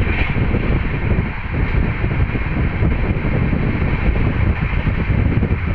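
Steady rush of wind on the microphone over the low rumble of an express passenger train running at about 130 km/h, heard from an open door or window.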